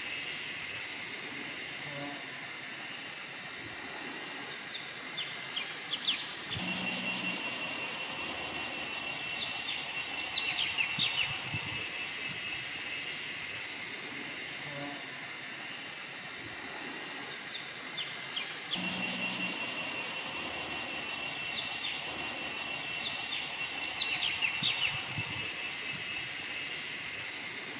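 Forest ambience: a steady high-pitched insect drone with clusters of short bird chirps, the same stretch repeating about every twelve seconds.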